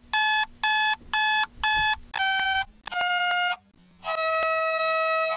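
Electronic alarm beeping: a run of short beeps about two a second, then three longer tones, each lower than the one before, the last held for over a second.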